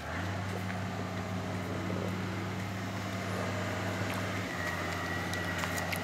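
An engine running steadily with a low, even hum; its pitch shifts slightly about four and a half seconds in.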